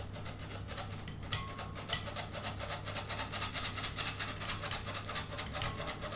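Hand-crank stainless-steel flour sifter being cranked, its wire agitator scraping flour and cocoa powder through the mesh screen in a fast, even rasping that starts about a second in.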